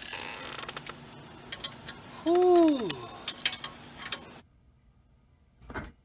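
Light metallic clinks and clicks, with one short sound that falls in pitch about two seconds in. Everything cuts off suddenly a little after four seconds, and a single thump comes near the end.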